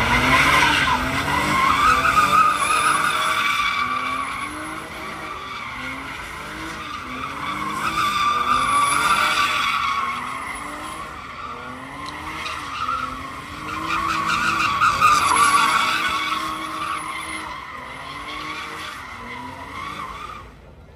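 A car doing donuts: the engine revs up and down over and over while the rear tyres screech against the asphalt, the squeal swelling loud three times as the car comes round.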